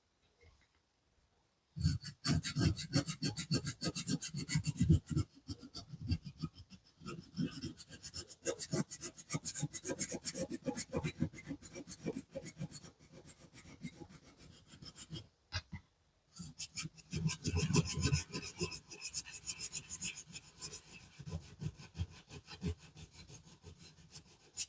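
Hand filing on a small model car part: rapid back-and-forth rasping strokes, with a brief pause about two thirds of the way in before the filing resumes.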